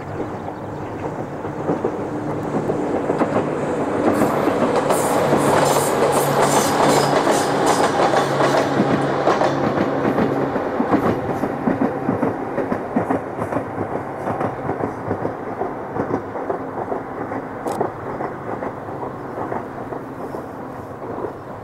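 An Ohmi Railway electric train (set 807F) passing along the line. It grows louder over the first few seconds, and its wheels clatter over the rail joints in quick clicks while it is loudest. It then fades slowly as it runs away.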